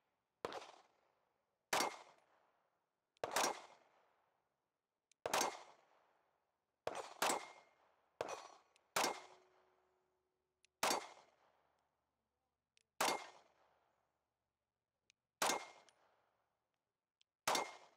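Compact 9 mm carry pistol fired at a steady pace: about a dozen single shots, one every second or two, each a sharp crack with a short decaying tail.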